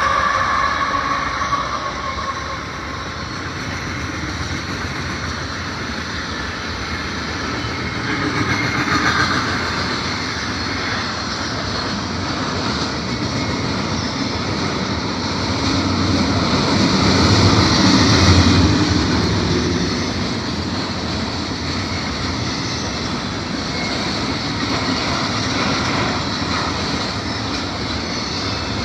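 Double-stack freight train's cars rolling past, a steady rumble and clatter of steel wheels on rail that swells and eases, louder about two-thirds of the way through. The last of the locomotive horn dies away in the first second or so.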